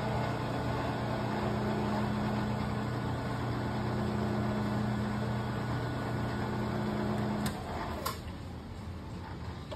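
Vertical milling machine's spindle motor running steadily with a roughing end mill in the cut. About seven and a half seconds in, a sharp click and a second one just after, and the machine's hum drops away as the spindle is switched off.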